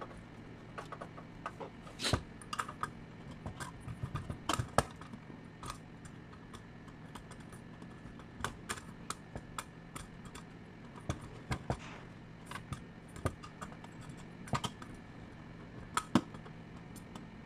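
Irregular clicks and taps of a screwdriver and small metal parts being worked inside a stage light's metal chassis, coming singly and in quick clusters, over a faint steady hum.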